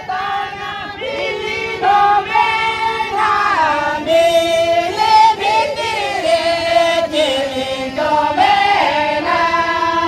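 Singing of a Santali lagne song, a melody of held notes that glide from pitch to pitch.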